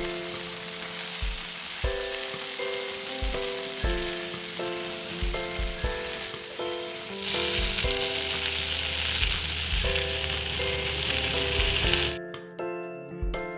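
Background music with a steady beat, over a loud even hiss that grows stronger about halfway through and cuts off suddenly near the end.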